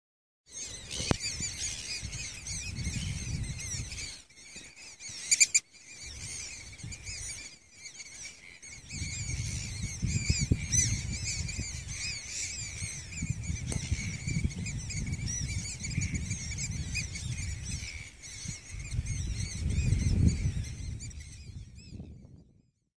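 Birds calling high-pitched and rapidly, over and over, with wind buffeting the microphone in gusts. There is a sharp click about five seconds in.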